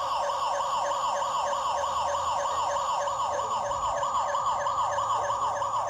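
Cheap battery-powered electronic bicycle horn sounding a continuous siren warble, the pitch sweeping about six times a second. It is not loud at all.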